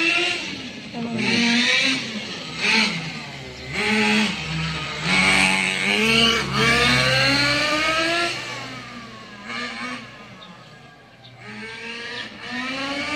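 Small two-stroke nitro engine of a radio-controlled buggy revving hard as it drives, the pitch climbing and dropping again and again with the throttle. It gets quieter shortly after the middle, then revs up again near the end.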